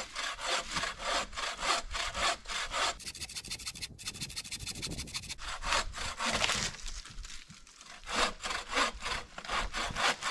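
Hand saw cutting through wood in quick, even strokes, about four a second, with a short break about three-quarters of the way through.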